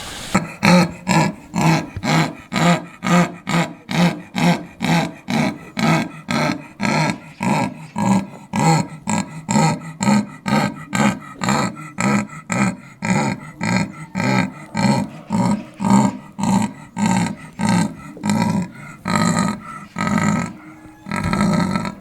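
Big cat giving a long run of rhythmic grunting calls, about two a second, each a short rasping stroke.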